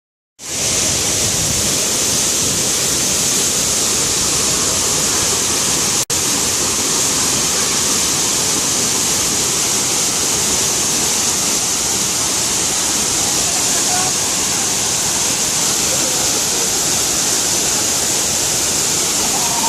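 Steady, loud rush of falling water from a waterfall, with a momentary break about six seconds in.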